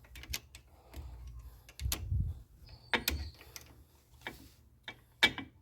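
Metal clicks and clanks of drum-brake shoes and their return springs being worked into place on a Volkswagen Beetle's brake backing plate. It comes as a string of separate sharp clicks, the loudest near the end, with a brief metallic ring about three seconds in.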